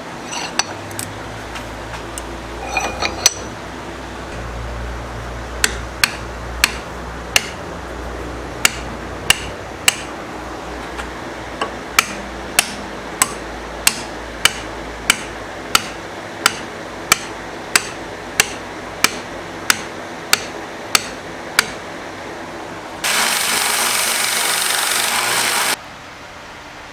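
Steady tapping strikes, about one and a half a second, over a low hum, followed near the end by a loud hiss lasting about three seconds that cuts off suddenly.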